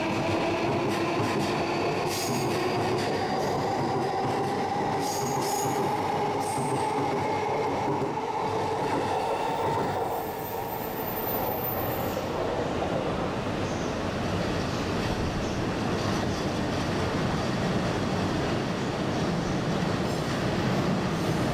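Yokosuka Line E235-series electric train pulling out, its motor whine rising slowly in pitch, with high wheel squeals. After a short dip about halfway through, a steady rumble of another train running on the rails.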